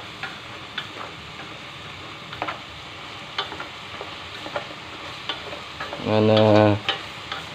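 Braising chicken sizzling in a stainless steel pot as it is stirred, the utensil clicking against the pot now and then. About six seconds in, a loud low buzzing tone sounds for under a second.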